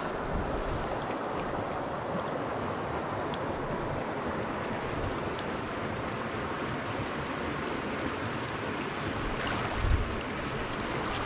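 Steady rushing of river current around the wader, with wind on the microphone. A brief low thump comes about ten seconds in.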